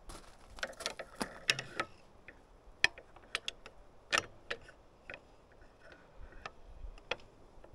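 A steel pry bar clicking and tapping irregularly against metal parts around the engine's belt pulleys as a new belt is levered into place. The two loudest clinks come about three and four seconds in.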